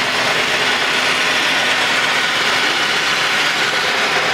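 A steady, loud mechanical rattling noise from a pickup truck's running engine.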